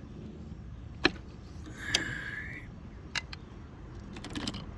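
Hand tools clicking and clinking against metal while working on the engine: a few sharp separate clicks about a second apart, a short scraping sound about two seconds in, and a quick run of clicks near the end.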